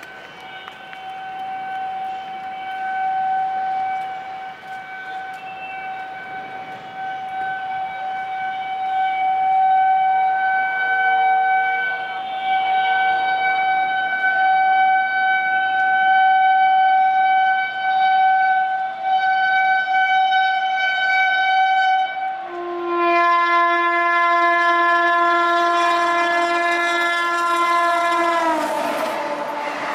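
WAP-7 electric locomotive's horn blown in one long unbroken blast, growing louder as the train approaches. About 22 seconds in it changes to a lower horn note, and near the end the pitch drops sharply as the locomotive passes, with the rush of the train running by at speed coming in.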